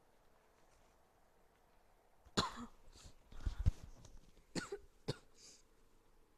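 A person with a cold coughing and clearing their throat: a few short, sharp bursts starting a couple of seconds in.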